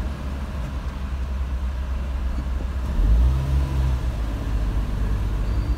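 Car engine and road rumble heard from inside the cabin, swelling about three seconds in as the car pulls away from the toll barrier and accelerates.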